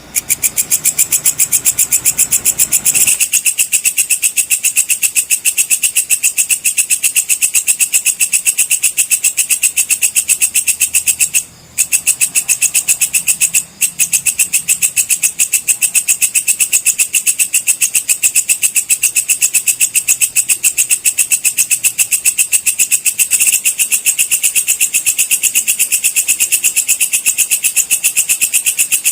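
Walang kecek (belalang kecek) insect singing: a loud, high, rapid pulsing trill, about ten pulses a second, that carries on without pause apart from two brief breaks near the middle.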